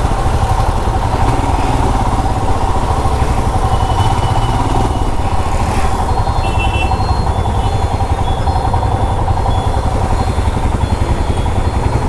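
Royal Enfield Himalayan's single-cylinder engine running at idle and low speed in slow traffic: a steady, rapid low thump. Faint short high-pitched tones from other traffic come in over it after a few seconds.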